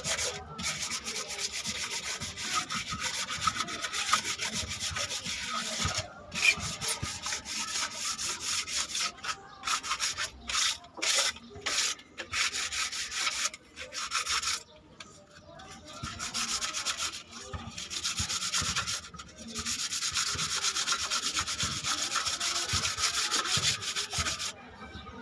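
Hand sanding or rubbing: rapid back-and-forth strokes in long runs, broken by a few short pauses.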